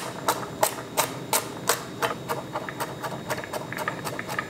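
Knife chopping garlic cloves on a wooden cutting board: steady knocks about three a second, turning into quicker, lighter taps as the garlic is minced.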